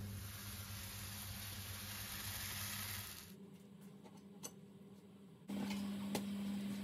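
Potato pancake frying in lard in a lidded pan: a steady sizzle that cuts off about three seconds in. Then a few light clicks of a spatula and plate, and a steady low hum starting near the end.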